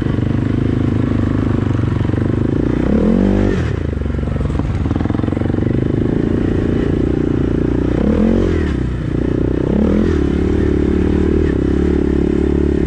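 ATV engine running steadily as it is ridden, with three short throttle blips, about three, eight and ten seconds in, each rising and falling in pitch.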